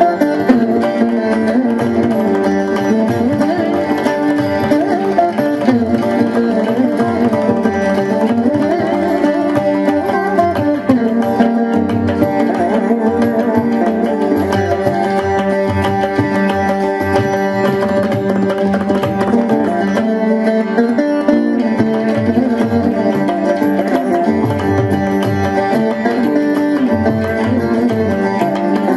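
Carnatic veena music: a plucked veena playing melodic lines whose notes bend and slide, over steady hand-drum accompaniment.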